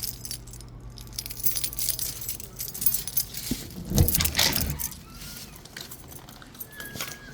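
Metallic jingling and clinking with a heavy thump about four seconds in, over a low steady hum that fades out before the middle.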